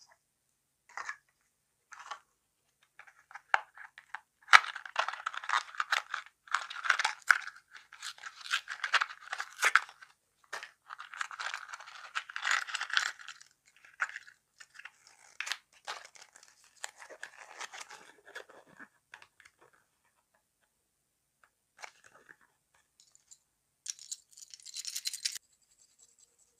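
Small toy packet being torn open and its wrapper crinkled by hand, in bursts of rustling and tearing, with a few light clicks in the first seconds.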